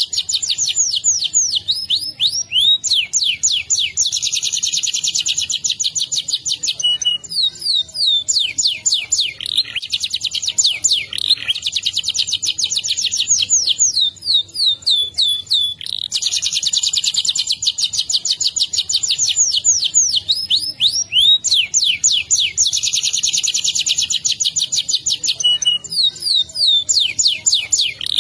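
Domestic canary singing a long, unbroken rolling song (ngerol): very fast trills of repeated notes alternating with runs of quick falling whistles, high-pitched and without pauses.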